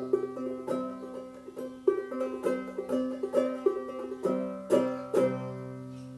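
Prat Instruments 12-inch open-back banjo with nylon strings in double C tuning, played clawhammer style. The melody runs on, then two strummed chords about five seconds in are left to ring and fade as the tune ends.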